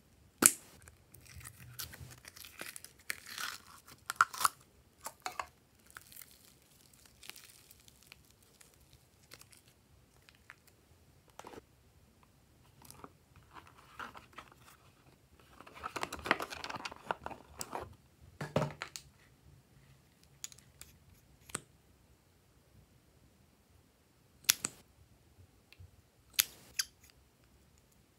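Hands handling plastic slime containers and a piping bag: scattered clicks and taps with plastic crinkling, and a longer stretch of rustling and scraping about sixteen seconds in.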